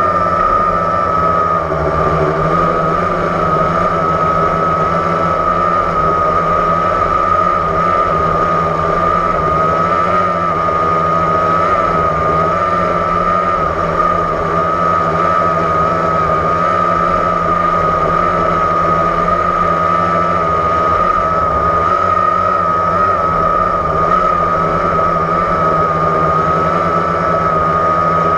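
Blade 350 QX quadcopter's brushless motors and propellers whining steadily, one high tone wavering slightly in pitch over a lower hum, heard through the GoPro mounted on the drone.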